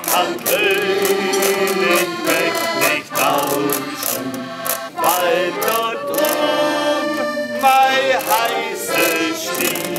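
Piano accordion and a washboard playing a folk song together, the washboard scraped in a steady rhythm, with male voices singing over them.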